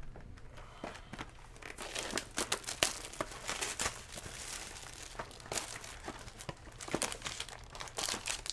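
Plastic wrapping crinkling and crackling as it is handled, in dense irregular crackles that thicken about a second and a half in.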